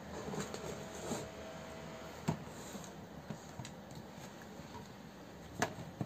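Faint room noise with a few short, sharp clicks or taps, the clearest about two seconds in and again near the end.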